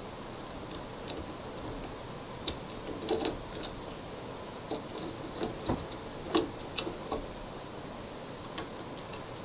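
Irregular small clicks and knocks of parts and tools being handled while the filament spool holder is fitted to a 3D printer's frame, with the sharpest knock about six seconds in.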